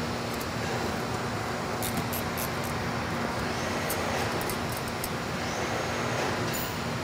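Steady workshop background hum with a constant low drone. A few light metallic clicks come about two seconds in, again near the middle, and once near the end, as the bolts on the pump's metal coupler guard are handled and taken out.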